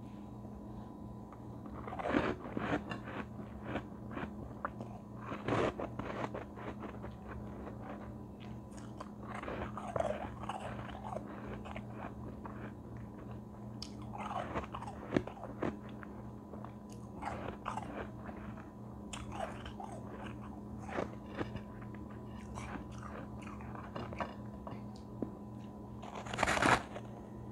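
A lump of white, frosty ice being bitten and chewed close to the microphone: irregular crunches throughout, with a loud bite near the end.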